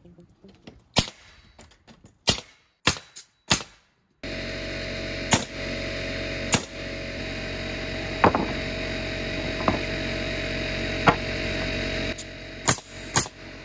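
Pneumatic framing nailer driving nails into 2x3 lumber, about eleven sharp shots spaced roughly a second apart. A steady drone comes in abruptly about four seconds in and cuts off near the end.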